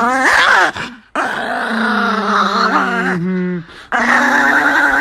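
Dog vocalizing in three drawn-out stretches, the middle one a long held, wavering tone of about two and a half seconds.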